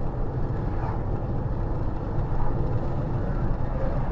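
Steady low rumble of a road vehicle on the move, with no clear events in it.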